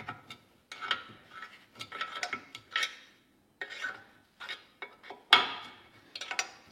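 Small screwdriver scraping, prying and clinking against the steel of a lower control arm and a new ball joint as the bolt holes are lined up: a run of short metal scrapes and taps, with the sharpest knock a little over five seconds in.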